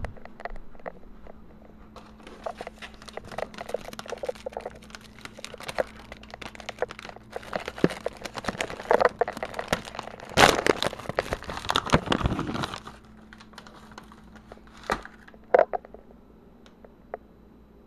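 A plastic treat bag being crinkled and rummaged, a run of crackling and rustling that is loudest about ten to twelve seconds in. Scattered light clicks come before and after it.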